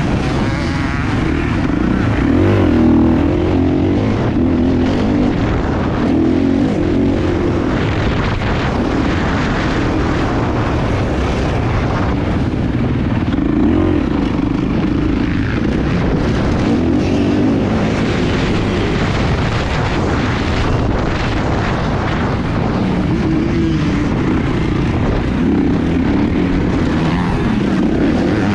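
Kawasaki motocross bike engine running hard around a dirt track, its pitch rising and falling again and again as the throttle is opened and closed through the corners, jumps and gear changes.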